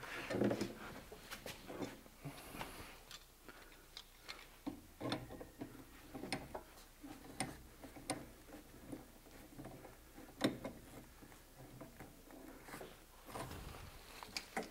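Irregular light metallic clicks and taps, with one sharper click about ten seconds in, from a Teflon-taped brass pipe nipple being handled and threaded into a recirculation pump fitting with tongue-and-groove pliers.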